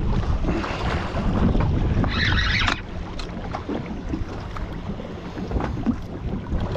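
Wind buffeting the microphone on an open boat at sea, with water noise underneath. About two seconds in there is a brief brighter hiss, and after it the wind noise drops off.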